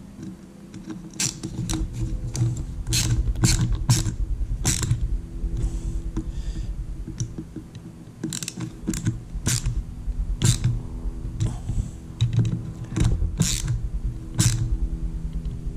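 Ratcheting hand screwdriver clicking in short, irregular runs as the screw that holds the drive chain's tensioner is tightened. A steady low hum lies under it.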